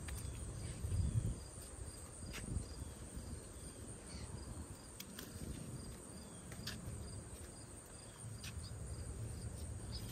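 Steady high-pitched insect chirring, with several sharp clicks spread through it: hand pruning shears snipping yardlong bean pods off the vine. Low rustling of leaves and handling runs underneath.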